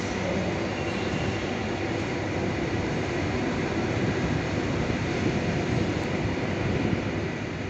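SNCB class 27 electric locomotive with its passenger coaches pulling out of the station: a steady rumble of wheels on the rails with a low hum underneath.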